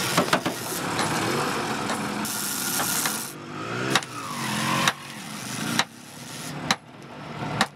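Hammer blows knocking at a rock jammed between a truck-bus's dual rear tyres, a few sharp knocks near the start and then about one a second through the second half. The vehicle's engine runs underneath, its pitch rising and falling briefly around the middle.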